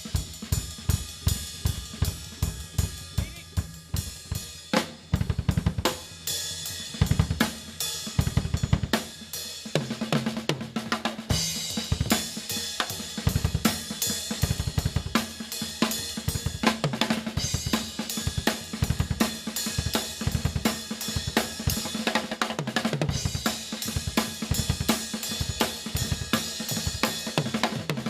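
Live drumming: rapid, driving drum strokes over a wash of cymbals, with a few heavy, spaced hits about a third of the way through before the fast playing resumes.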